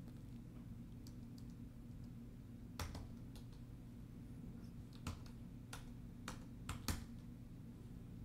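Faint, scattered keystrokes on a computer keyboard as a username and password are typed: about eight separate taps spaced unevenly over the seconds, with a low steady hum underneath.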